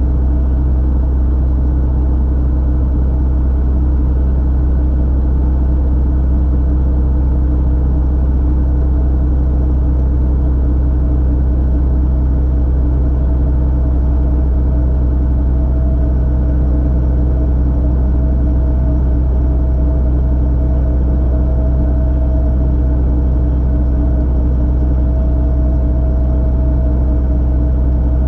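Robinson R22 helicopter running steadily: an even low drone of engine and rotor with a constant hum over it, holding the same level and pitch throughout.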